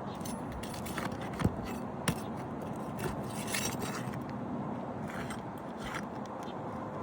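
Scraping of tools working a roof shingle loose, with two sharp knocks about a second and a half and two seconds in.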